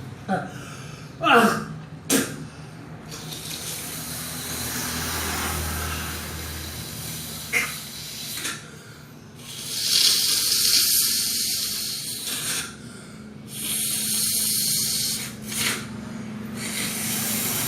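A person snorting air hard out through the nose to expel mucus loosened by gurah herbal nasal drops. A few short sharp snorts come near the start, then several long hissing blows of two to four seconds each.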